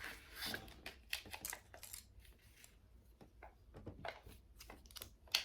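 Small plastic parts of a toy cosmetic case clicking and rattling as they are handled and fitted together, with a sharper click near the end.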